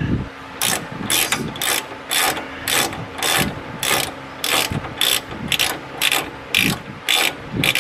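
Socket ratchet wrench clicking in short, even runs, about two a second, as it spins off a 13/16-inch inner tie rod nut that has already been broken loose.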